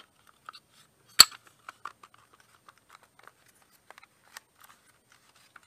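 Plastic case of a Porter Cable 20V lithium power-tool battery pack being put back together by hand. There is one sharp snap about a second in, amid faint clicks and rattles of plastic being handled.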